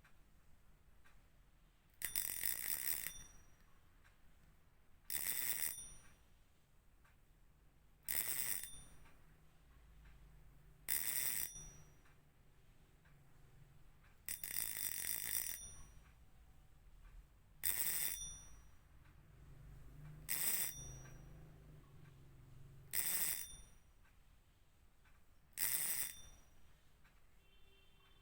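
Fishing reel drag buzzing in short bursts as line is pulled off the spool, nine bursts about three seconds apart, each up to about a second and a half long, with a ringing metallic clicking.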